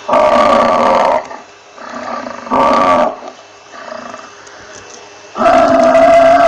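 Buffalo bellowing: a loud call of about a second, a shorter one a couple of seconds later, and a long drawn-out bellow starting near the end, with quieter grunts in between.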